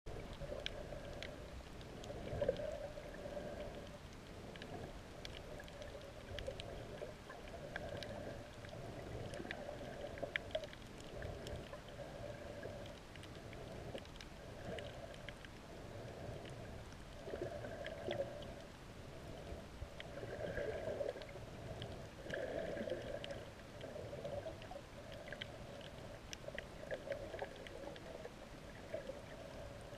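Muffled underwater sound of moving seawater picked up by a submerged camera, swelling and fading every second or two, with scattered faint clicks.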